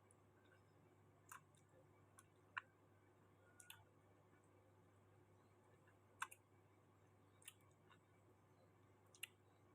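Quiet eating sounds over a low steady hum: about eight short, sharp mouth clicks and smacks at irregular moments, the loudest about two and a half and six seconds in.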